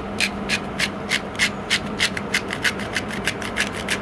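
Hand-twisted spice grinder grinding garlic, a fast scratchy rasp of about five strokes a second.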